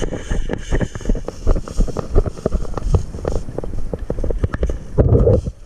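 Low rumble of wind and handling on the camera microphone, with many irregular knocks and rustles and a louder stretch about five seconds in.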